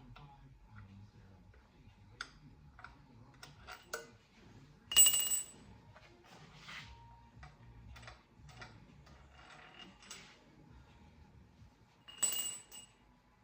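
Hand tools clicking and tapping on the metal parts of an LS V8 engine under teardown, with two sharp metallic clanks that ring briefly, about five seconds in and again near the end.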